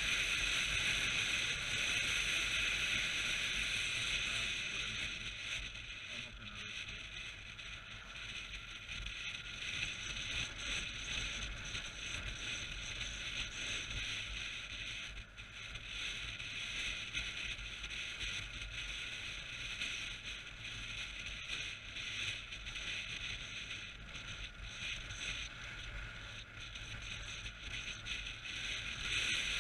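Steady wind rush over a helmet-mounted camera on a motorcycle riding at road speed, a little quieter from about five seconds in.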